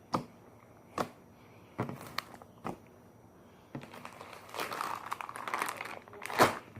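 Slime being handled and squished: a few separate sharp clicks and pops, then from about four seconds in a denser crackling squish, with one loud pop near the end.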